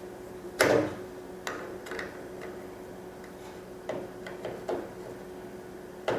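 Irregular clicks and knocks of hand tools and small parts as the forced-air heater's pump is put back together and its cover screws are done up, about six in all, the loudest just over half a second in. A faint steady hum runs underneath.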